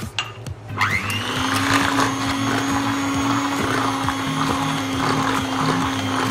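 Electric hand mixer switched on about a second in, its motor whining up to speed and then running steadily as the beaters churn flour, cocoa powder and milk in a glass bowl.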